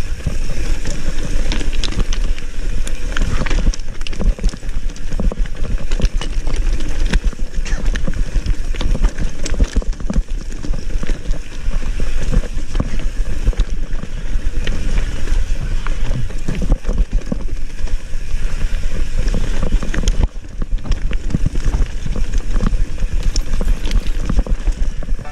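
Mountain bike rolling fast down rocky dirt singletrack: a constant clatter of tyres striking stones and roots, with the bike rattling over the rough ground, heard close up through the rider's own camera microphone.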